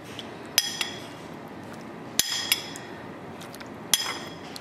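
A measuring spoon clinking against a ceramic bowl and a saucepan while spoonfuls of water are scooped and added: four sharp clinks, each with a short ring, spaced about one to one and a half seconds apart.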